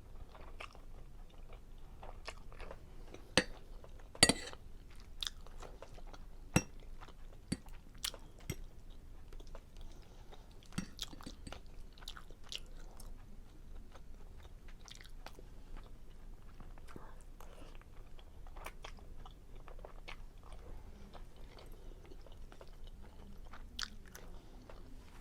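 Close-miked chewing and mouth sounds of someone eating seafood Alfredo linguine, with many scattered sharp clicks, the loudest few a few seconds in.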